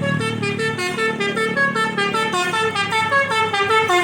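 Tour bus's basuri telolet horn playing a fast tune of short notes, about five a second, stepping up and down in pitch.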